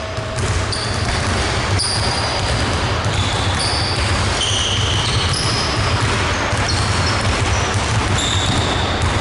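Several basketballs being dribbled at once on a hardwood gym floor, a dense run of overlapping bounces, with frequent short high sneaker squeaks as players cut and stop.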